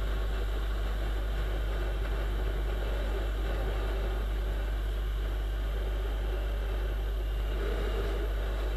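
Viper 200 motorcycle running at a steady cruising speed, heard from a camera on its handlebars as an even, unchanging low rumble.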